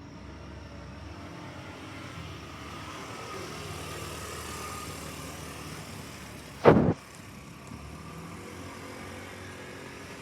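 A vehicle passing, its noise swelling toward the middle and then easing off. A single brief loud thump comes about seven seconds in.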